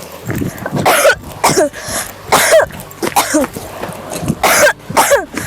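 A person coughing in a fit, about seven harsh coughs in a row, some with a hoarse voiced edge. It is a persistent cough that the cougher says has not gone away for a month.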